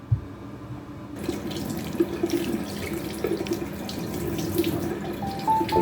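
Water running from a tap into a sink, splashing, starting about a second in after a short knock. Music comes in near the end.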